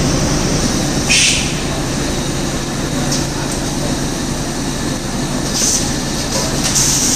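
Electrically and pneumatically driven automatic bitumen bag filling and packaging line running: a steady mechanical hum, with short hisses about a second in and again near the end.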